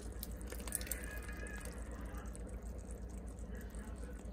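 Glass lid lifted off a steel stockpot, with a couple of light clinks in the first second, over the low bubbling of chili simmering in the pot.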